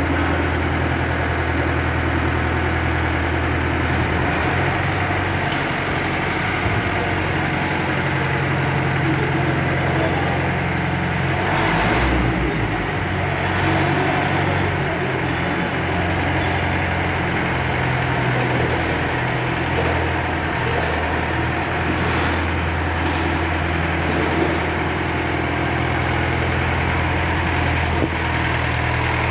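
Heavy vehicle engine running steadily at a low hum, swelling for a moment about twelve seconds in, with a few light knocks later on.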